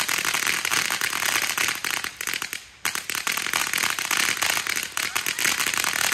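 Fireworks crackling: a dense run of rapid small pops. It pauses briefly a little under halfway, then starts again.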